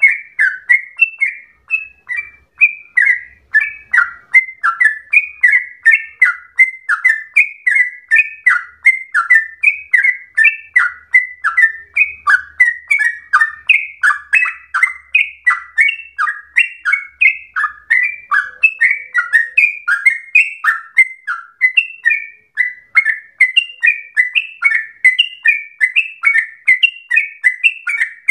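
Yellow-vented bulbul (trucukan) in full song: a long unbroken run of short whistled notes, about two or three a second, each sliding down in pitch.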